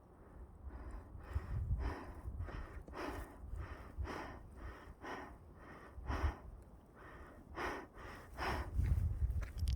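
A person breathing hard and fast, panting at about two breaths a second, over a low rumble.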